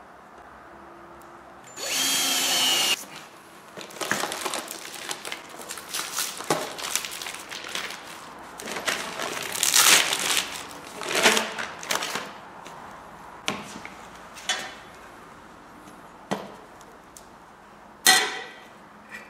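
A cordless drill/driver runs for about a second, driving a screw through a steel flange into a stool seat. Then comes a few seconds of irregular rustling and scraping as a chrome steel pipe is handled, and then a few sharp metal knocks. The last knock, near the end, is the loudest and rings, as the pipe is set into the flange on the brake disc.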